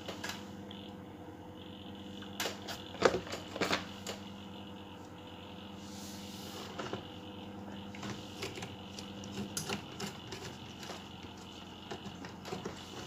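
Scattered small clicks and metallic clinks from a screwdriver tightening the new power IC's mounting screw against the amplifier's metal heatsink while the board is handled.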